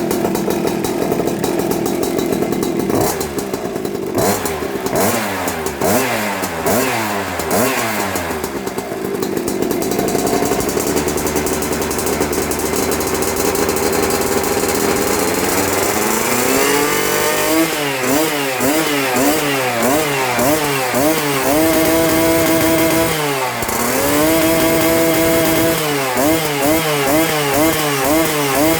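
Evo Powerboard 71cc scooter engine with an Arrow exhaust pipe, running and being revved with the throttle. A few quick blips early on give way to a steady idle, then in the second half it rises to a high held rev and drops back several times. It is noisy.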